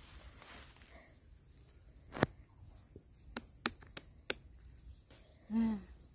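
Steady high insect chirring, with a few sharp clicks, the loudest about two seconds in, and a brief voice near the end.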